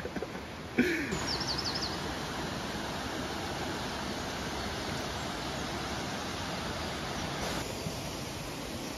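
Steady rush of a mountain river or waterfall, an even unbroken hiss that sets in abruptly about a second in. A few quick high bird chirps come just after it starts.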